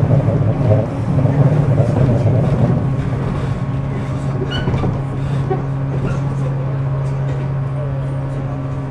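Inside a JR 415 series electric multiple-unit car, the motor car MoHa 414-126. A rough low rumble eases after about three seconds, leaving a steady low hum.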